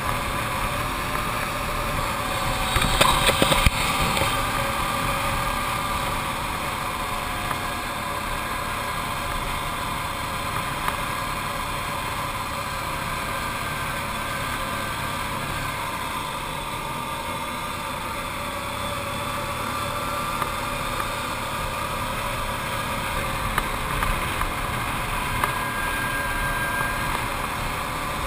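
Arctic Cat TRV 1000 ATV's V-twin engine running steadily under way on the climb, its pitch drifting slowly, with a brief louder burst of noise about three seconds in.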